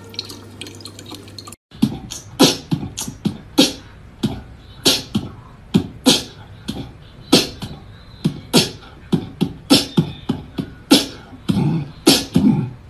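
Beatboxing: percussive mouth beats in a steady rhythm, about two hits a second, starting after a brief stretch of running tap water about a second and a half in.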